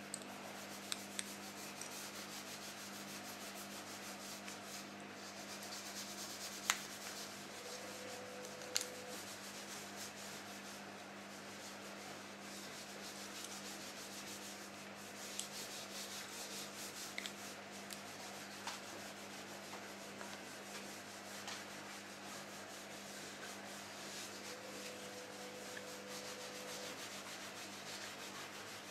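Small metal pick scraping and rubbing inside a cartridge ball bearing from a Shimano Hollowtech II bottom bracket as it is taken apart, with a few sharp clicks of metal parts.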